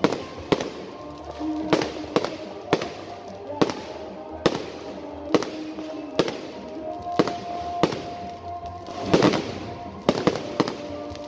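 Fireworks display: aerial shells bursting overhead in an irregular run of sharp bangs and crackles, one to two a second, with a thick cluster about nine seconds in. Music plays underneath.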